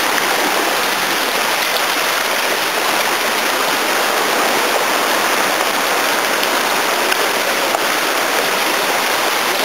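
Shallow rocky river rushing over stones and small cascades: a steady rush of water.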